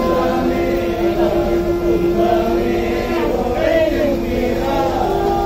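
A crowd of devotees chanting and singing together over a steady held drone note.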